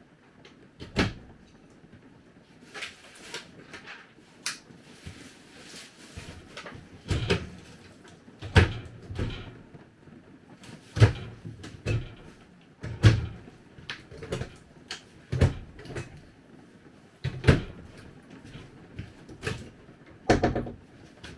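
Knocks, thuds and clatters of things being moved and put away while tidying an RV, with cabinet doors opening and closing. About a dozen sharp knocks come at irregular intervals, with a short rattle near the end.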